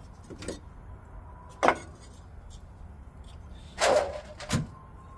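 A 9/16 wrench clinking and knocking against a nut and metal fittings while being worked: a sharp click about a second and a half in, then a short clatter and another knock near four seconds.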